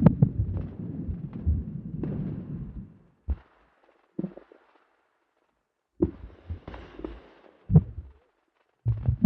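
Amplified sounds from inside a human body, picked up as in a stethoscope auscultation: a low rumbling for about three seconds, then two short thumps in near silence, then more rumbling with a few sharp thumps in the last three seconds.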